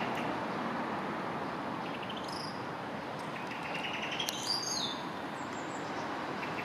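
Bird chirps, once about two seconds in and again in a short run a little past four seconds, over a steady background rumble.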